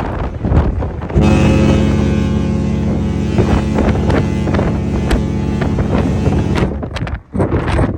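Royal Caribbean cruise ship Jewel of the Seas' horns sounding one long, steady blast that starts sharply about a second in and cuts off about five and a half seconds later. Wind buffets the microphone before and after the blast.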